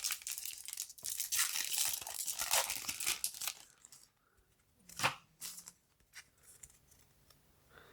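A foil booster-pack wrapper is torn open and crinkled for about three seconds, followed by a few soft clicks of the cards being handled.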